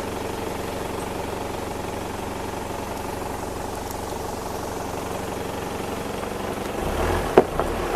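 Vehicle engine running at a steady pitch, heard from inside the cabin. Near the end a low rumble swells and there is one sharp knock.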